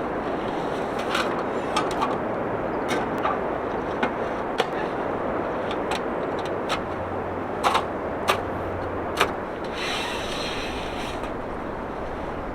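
Steady rain hiss with scattered drops tapping sharply at irregular moments.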